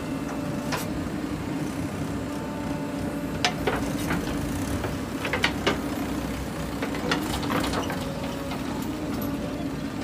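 JCB 3DX backhoe loader's diesel engine running steadily under load while the backhoe digs soil. Sharp knocks and clanks from the steel bucket and arm come several times from about three and a half to eight seconds in.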